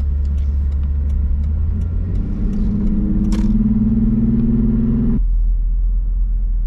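A car's low rumble, with an engine note that comes in about two seconds in, climbs slowly and cuts off abruptly about five seconds in, leaving only the low rumble.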